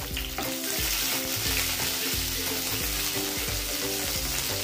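Chopped onions sizzling in hot mustard oil in a nonstick frying pan, stirred with a wooden spatula. Background music with a steady beat plays along.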